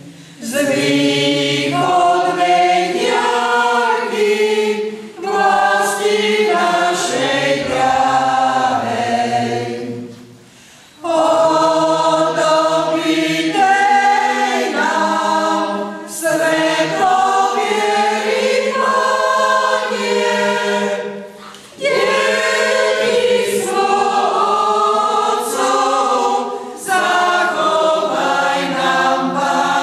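Choir singing unaccompanied, in long sustained phrases with a clear pause about ten seconds in and a shorter one a little past twenty seconds.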